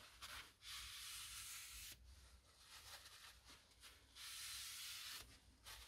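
A rag wiped by a gloved hand along an oily lathe bedway: soft rubbing, with two longer strokes of about a second each and a few shorter rubs between.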